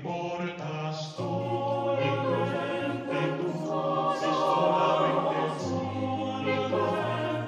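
Mixed-voice choir singing unaccompanied in close harmony, with sustained low bass notes under the upper voices.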